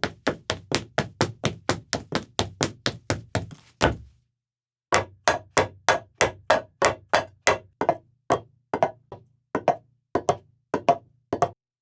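Footsteps with sharp, knocking steps: a quick run of about four steps a second ending on a heavier step, a pause of about a second, then steps resuming that slow to about two a second near the end.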